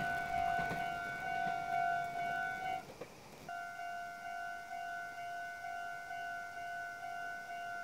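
Level-crossing warning bell ringing a steady repeating ding, about one and a half strokes a second, that breaks off briefly about three seconds in and then resumes. Under the first few seconds, the rumble of a passing train dies away.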